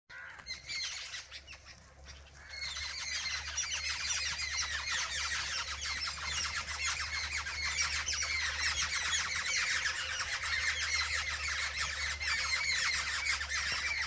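A dense chorus of many birds calling at once: short, overlapping chirps and squawks, sparse for the first couple of seconds, then filling in thickly from about two and a half seconds in.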